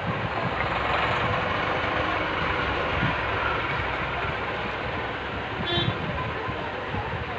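Steady street traffic noise, with a short vehicle horn toot near the end.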